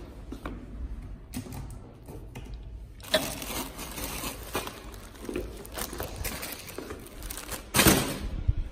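Plastic-wrapped grocery packs crinkling and rustling as they are handled, in irregular bursts that grow busier a few seconds in, with the loudest rustle near the end.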